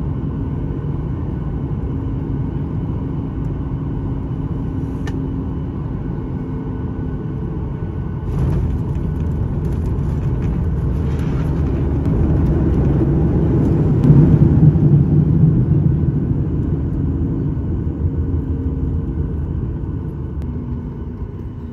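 Boeing 737 MAX 8 landing, heard from the cabin: a steady low rumble, then about eight seconds in the noise steps up with a rushing hiss as it rolls on the runway with the spoilers raised. The rumble swells to its loudest a little past halfway, then eases as the jet slows.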